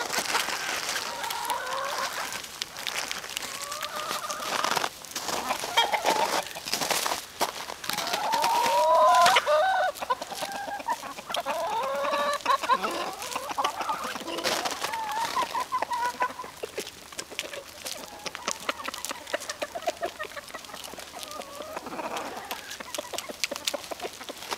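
A flock of chickens clucking and calling over one another, with a louder run of calls about eight to ten seconds in and fewer calls toward the end. Scattered sharp clicks run through it.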